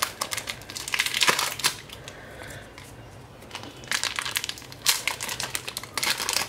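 Foil booster-pack wrapper being torn open and crinkled by hand, in several bursts of crackling with short pauses between.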